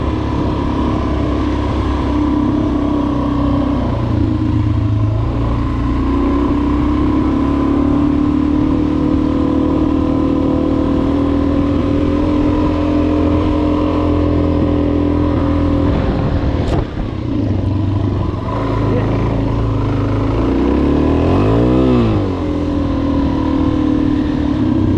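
Suzuki DR-Z400S's single-cylinder four-stroke engine running steadily as the bike is ridden. The throttle closes briefly about two-thirds of the way through, and a little later the engine note falls and climbs back up.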